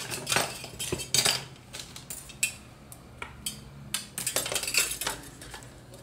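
Aluminium craft wire being pulled and handled while it is threaded through holes drilled in a wooden spatula: an irregular run of scrapes, rustles and light clinks.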